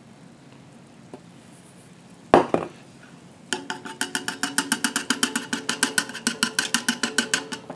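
A wire balloon whisk beating cornmeal into milk in a metal saucepan, rattling against the pan's sides and bottom about seven times a second, each stroke with a light metallic ring. Before the whisking starts there is one sharp knock.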